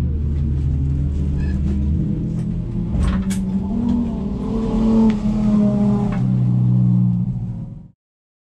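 Folk-race car engine heard from inside the stripped cabin, running steadily, then revving up and down, with two sharp knocks about three seconds in. The sound cuts off abruptly near the end.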